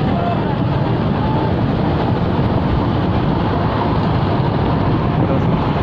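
Steady engine and road noise heard from a moving bemo minibus driving in traffic.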